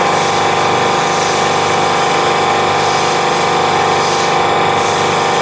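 Duramax V8 diesel running steadily on a test stand, held at a constant speed during a fuel rail test.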